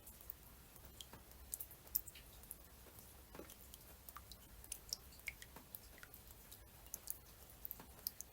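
Raindrops falling in a quiet, irregular scatter of single light ticks and pats, a few a second.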